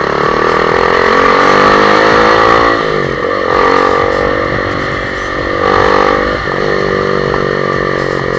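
A motor vehicle's engine running close by in traffic. Its pitch climbs, drops sharply about three seconds in, climbs again and drops once more about six seconds in.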